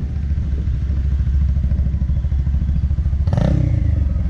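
Bajaj Pulsar 180's single-cylinder engine running through an aftermarket M4 exhaust while being ridden: very loud, with a steady, fast, low pulsing from the exhaust. A short, sharper burst of sound cuts in a little over three seconds in.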